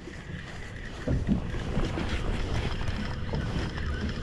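Steady wind and sea noise aboard a fishing boat offshore, with wind buffeting the microphone; it gets louder about a second in.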